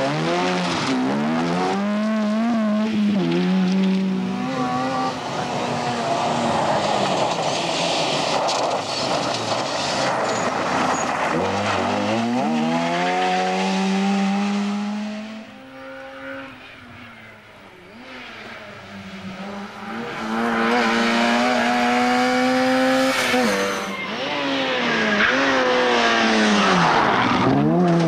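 Opel Astra GSi 16V Group A rally car's 2.0-litre four-cylinder engine revving hard through a stage, its note climbing and dropping over and over with gear changes and lifts into corners. It falls quieter for a few seconds just past the middle, then builds again as the car comes through once more.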